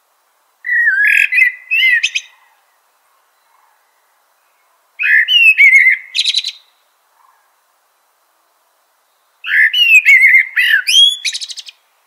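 Northern mockingbird singing: three short song phrases a few seconds apart, each a quick run of varied notes.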